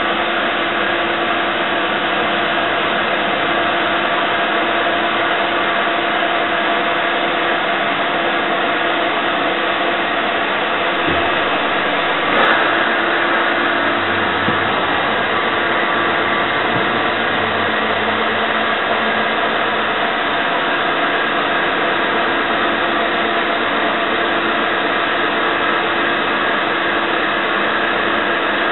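Rambaudi Versamatic 500 CNC universal milling machine running under program control, a steady whirring hum with several held tones. A short knock comes about twelve seconds in.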